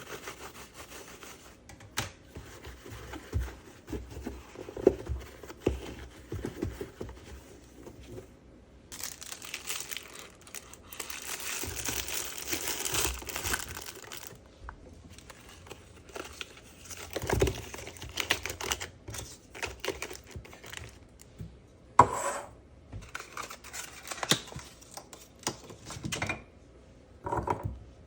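Plastic packaging crinkling and being torn open, amid scattered clicks and knocks of items being handled and set down. The rustling is densest for a few seconds in the middle, and a few sharp knocks stand out.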